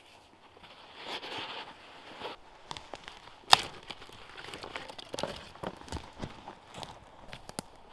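Rustling and creaking of a backpack and its strapped-on sleeping mat being handled and lifted, with a sharp knock about three and a half seconds in, then scattered clicks and steps on the forest floor.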